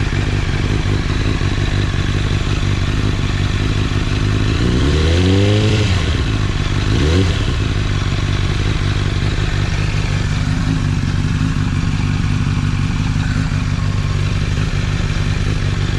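Honda CBR1000RR's inline-four engine idling steadily while warming up after an oil change, with a short rev about five seconds in and another about two seconds later.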